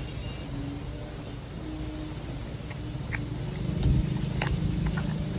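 Low steady background rumble that swells after about three and a half seconds, with a few light clicks and taps of a cardboard product box being handled near the end.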